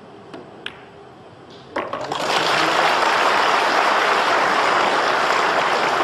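Two sharp clicks of a pool cue striking the cue ball and the ball knocking against another ball, then an audience breaking into loud, sustained applause about two seconds in.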